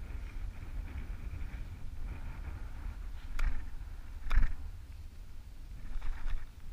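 Wind rumbling on a body-worn camera's microphone, with scuffling movement over moss and rock and two sharp knocks about three and a half and four and a half seconds in, the second the louder.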